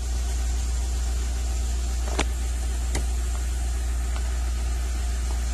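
Volkswagen New Beetle's engine idling steadily, heard from inside the cabin, with two faint clicks about a second apart near the middle.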